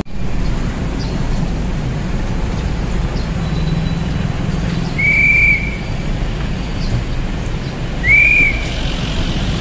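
Steady low rumble of vehicle or road noise, with two short high whistle-like tones about three seconds apart, the second rising and falling.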